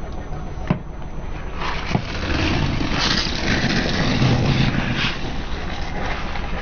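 Car engine running with the rumble and grainy noise of the car rolling slowly. Two sharp clicks come in the first two seconds, and the rough noise builds from about a second and a half in.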